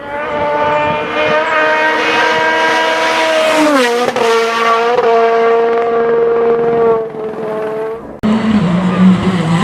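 Rally car engine held at high revs, its pitch dropping sharply about four seconds in, then holding before fading away. Near the end the sound cuts abruptly to a lower, wavering engine note.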